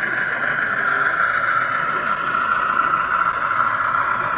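Model railway locomotive running along the layout: a steady whirring hum that dips slightly in pitch.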